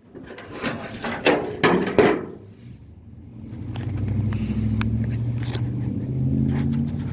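A few knocks and handling clatters, then a steady low motor drone starts about three and a half seconds in and keeps running.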